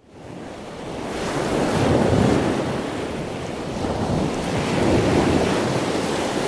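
A loud rushing whoosh that starts suddenly, builds, and swells twice, about two seconds in and again about five seconds in.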